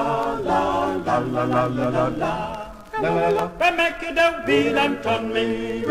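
Male vocal quintet singing a Jamaican folk song in close harmony, with no instruments. The voices hold sustained chords, break off briefly a little before three seconds in, and come back in.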